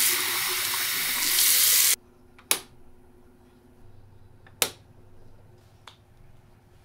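Tap water running from a washbasin faucet into a cup for about two seconds, getting louder as the cup fills, then shut off. Then a wall light switch clicks twice, about two seconds apart, and a fainter click of a TV remote button follows near the end.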